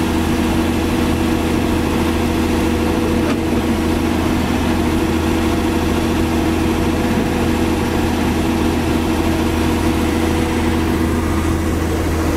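Large truck diesel engine idling steadily, an even low hum that does not rev.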